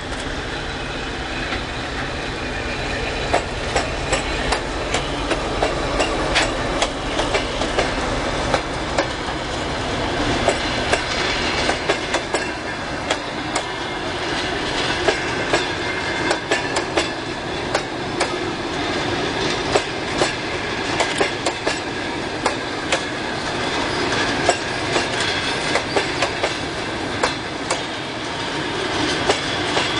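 A TEP70 diesel locomotive and its passenger coaches pass close by. The locomotive's low engine rumble fills the first several seconds and then fades, leaving the coaches rolling by with a steady run of wheel clicks over the rail joints.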